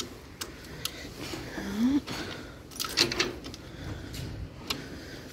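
Ignition keys jingling and clicking as the key is turned in a compact tractor's dashboard switch, with several sharp clicks and no engine cranking: the starter does not engage because the clutch safety switch has not been pressed.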